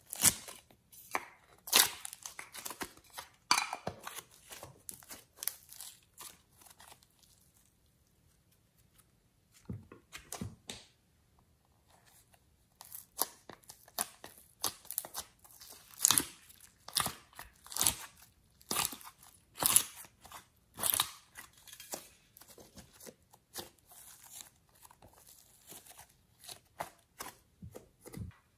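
Thin clear plastic slime containers being squeezed, pried open and peeled, giving sharp crackles, clicks and crinkling tears of plastic in clusters, with a short lull about a third of the way through.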